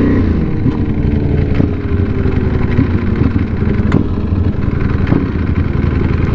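Motorcycle engine, heard from the rider's position, dropping in pitch in the first second as it slows, then running at low revs.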